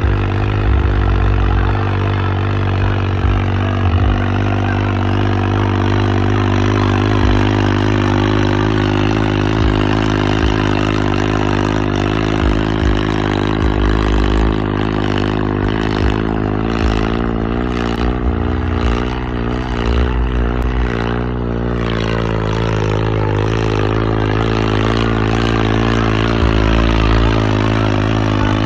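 Modified tractor's diesel engine running hard at a steady, high speed, pouring black smoke, while the tractor is held reared up on its rear wheels. Its pitch wavers up and down for a few seconds in the middle.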